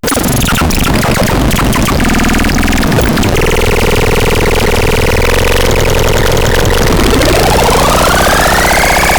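Harsh, buzzing electronic noise from the ELVIS TRON sound device: a gritty drone holds one pitch for a few seconds, then glides steadily upward in pitch about seven seconds in.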